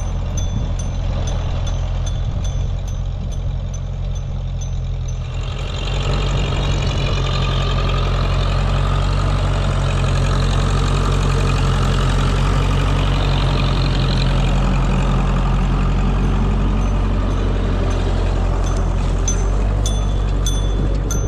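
Classic Massey Ferguson tractor engine running steadily, pulling a potato planter, with a regular light ticking. About six seconds in, the engine grows louder and stays that way.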